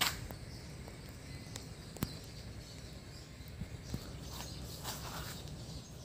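Faint footsteps and handling noise from a handheld phone while walking, with one sharp click about two seconds in.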